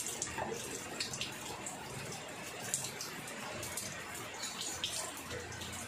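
Light clinks of metal sockets and tools as a hand rummages in an open socket-set case, a few scattered sharp clicks over a steady hiss.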